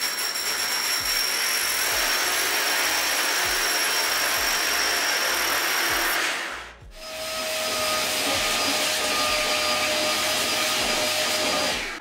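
Rotary hammer drill with a long bit boring into a wall, running steadily with a high motor whine. About six and a half seconds in it stops briefly, then runs again with a lower whine.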